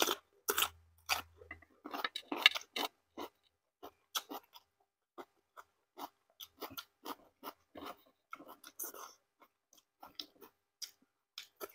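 Close-up chewing and eating sounds: irregular wet smacks, clicks and crunches from a person's mouth, a few a second, busiest and loudest about two to three seconds in.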